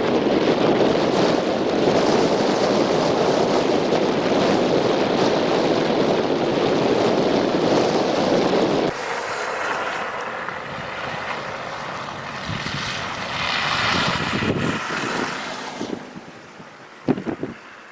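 Blizzard wind buffeting the microphone in a loud, steady rush. About halfway it cuts abruptly to a quieter, hissing wind that swells once and then fades, with a few sharp clicks near the end.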